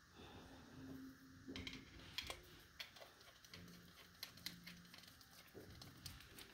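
Faint, scattered light clicks and taps of small metal parts being handled as the gearbox housing of a Morse MV single-lever throttle and shifter control is turned over in the hands.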